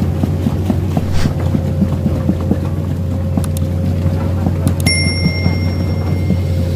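Komatsu PC210 excavator's diesel engine running steadily with a low drone. About five seconds in, a click is followed by a bright bell ding that rings for about a second and a half: the sound effect of a subscribe-button animation.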